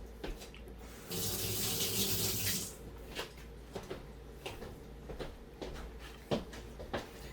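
Water running from a tap into a sink for about a second and a half, starting about a second in, then shut off. A few light knocks follow.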